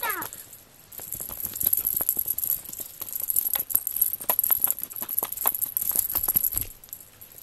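Irregular light tapping and rattling from a cat at play with a wand toy on a foam floor mat, the toy and paws knocking about, over a faint steady high hiss.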